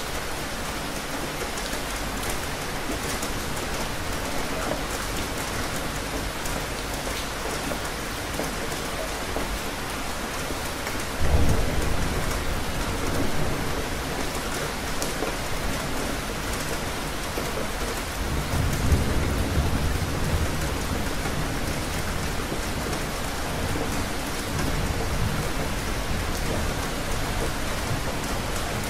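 Steady rain falling, with thunder: it breaks suddenly about eleven seconds in and rumbles low, and a second, longer rumble rolls through a few seconds later.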